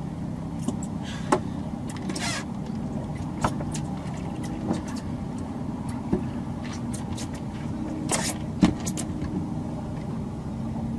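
Outboard motor running at a steady idle, a low even hum, with a few sharp clicks and knocks scattered through it.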